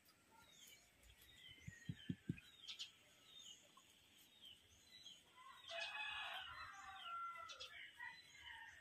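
A rooster crowing faintly, one drawn-out call about six seconds in, with small birds chirping softly and a few soft low knocks about two seconds in.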